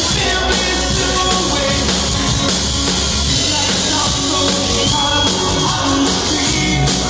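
A live rock band playing loudly: a drum kit being hit hard under electric guitars and bass guitar, running steadily without a break.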